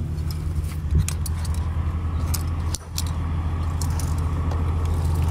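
A truck's diesel engine idling steadily under light metallic jingling and clinking of strap hardware and pins being handled. There is a single knock about a second in, and the sound dips briefly just before three seconds.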